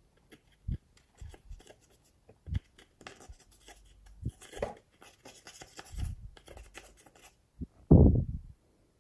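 A thin stick scraping pressed eyeshadow out of a makeup palette: a dry scratching with small taps, and a louder low thump near the end.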